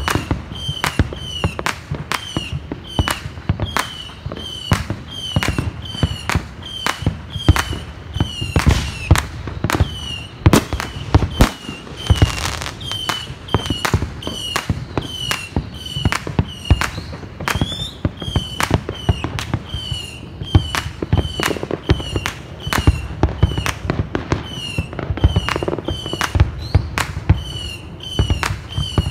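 Fireworks going off in a steady barrage of sharp bangs, about two or three a second.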